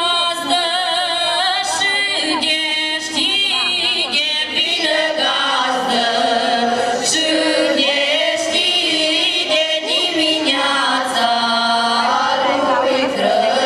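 A folk choir of mostly female voices singing a Romanian Christmas carol (colind) without instruments, in long held notes.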